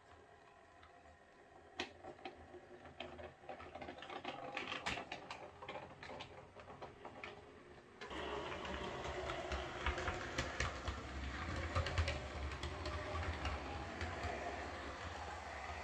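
Hornby OO gauge Class 153 model railcar running on the track: a stream of small clicks and ticks from its wheels on the rails, growing louder. About eight seconds in it jumps to a louder, steadier whirr of the motor and gears with a low hum and rattling clicks as it runs close by.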